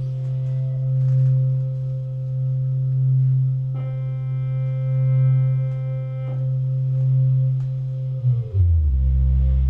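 Experimental electronic drone music: a loud, steady low drone swelling and fading slowly about every two seconds, with a quieter steady tone above it. A buzzy tone with many overtones is held for about two and a half seconds in the middle, and near the end the low drone slides down in pitch and settles on a deeper note.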